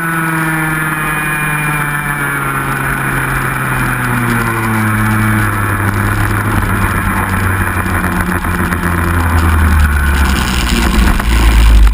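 125 cc two-stroke racing kart engine heard onboard, its pitch falling steadily as the kart slows down, ending as a loud low drone.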